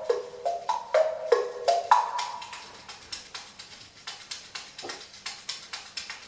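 Music played over a hi-fi system: pitched wooden percussion, short struck notes in quick melodic runs for about two seconds, then sparser single strikes.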